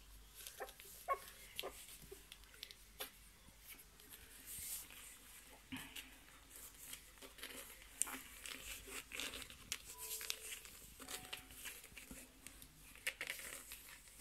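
Shiba Inu puppies shuffling and scratching about on a fabric blanket: faint rustling with small scattered clicks, and a few brief faint squeaks now and then.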